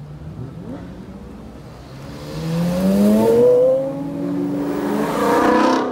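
Two cars accelerating hard past one after the other, each engine rising in pitch as it revs up; the first and loudest is about three seconds in, the second near the end.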